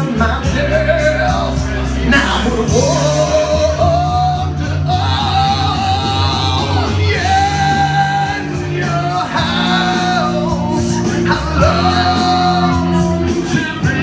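A man singing loudly and with strain into a microphone over loud backing music, holding long notes.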